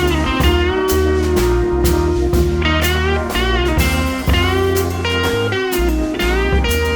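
Background music: a track led by bending, gliding electric guitar lines over a steady bass and drum beat.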